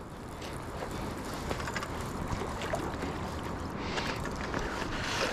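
Steady wind and water noise with a few faint, short clicks.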